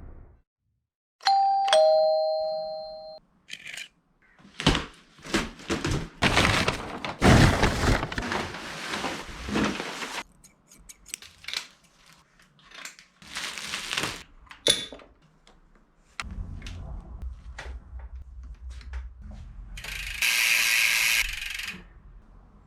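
Two-tone doorbell chime, a single ding-dong falling from a higher note to a lower one. It is followed by a long run of sharp knocks, scrapes and rustling, with a hissing burst near the end.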